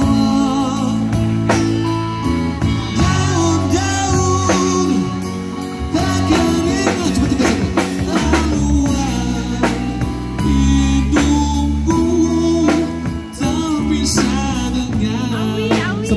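Live rock band playing through a PA: a male vocalist singing into a microphone over a drum kit, electric guitars and bass guitar.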